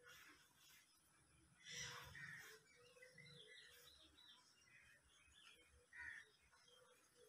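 Near silence, with faint bird calls in the background and a few short chirps now and then.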